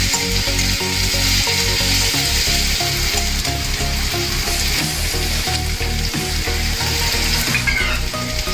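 Chopped onions sizzling steadily in hot oil in a metal kadai, stirred with a metal spatula. They are being fried from pale toward brown.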